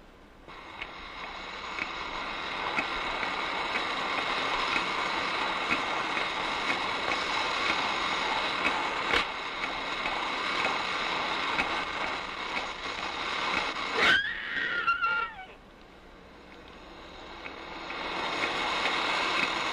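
Noisy field recording: a steady hiss with one short, high, wavering call about fourteen seconds in that slides downward. The recording is presented as a Sasquatch vocalization.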